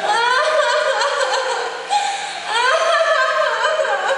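A loud, high-pitched voice in long, wavering, gliding notes, in two phrases about two and a half seconds apart, most likely the mime act's recorded soundtrack.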